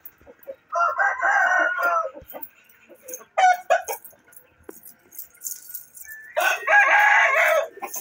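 Rooster crowing twice, each crow a little over a second long, about a second in and again near the end, with a short call in between.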